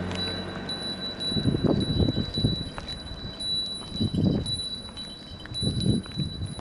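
Japanese railroad crossing alarm ringing, a high repeating electronic chime. Several louder low muffled bursts of noise come about a second or two apart.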